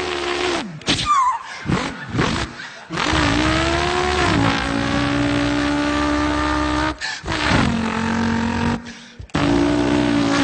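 A man imitating a car engine with his voice: a few short revs, then long held engine notes that rise and then drop to a lower steady pitch, broken by brief pauses.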